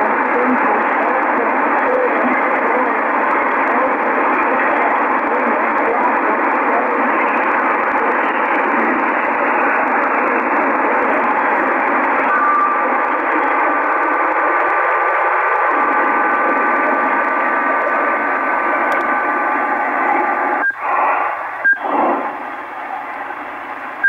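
Shortwave receiver hiss and static in upper-sideband mode, with no voice readable. From about halfway two steady tones sound together for about eight seconds, and near the end the hiss breaks off briefly twice.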